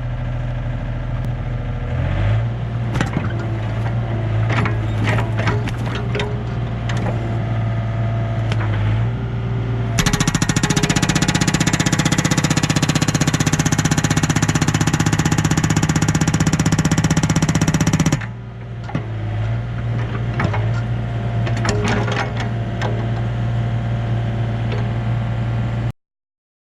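Yanmar B37 excavator's diesel engine running with scattered knocks and clunks as the arm works. From about ten seconds in, the hydraulic breaker hammer fires in a rapid, continuous rattle against a hardwood stump for about eight seconds, then stops, leaving the engine running. The sound cuts off abruptly near the end.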